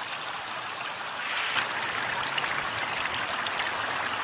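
Water of the Médicis Fountain trickling and splashing steadily into its pool, briefly a little louder about a second and a half in.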